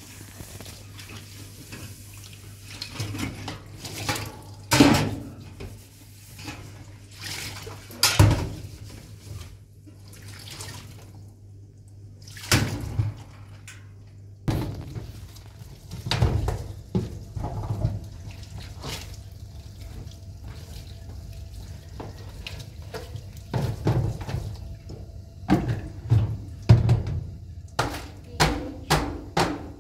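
Tap water running into a steel kitchen sink while a stainless steel tray and steel pots are scrubbed and rinsed. The water is broken by repeated sharp clanks of metal dishes knocking against the sink and each other, more of them near the end.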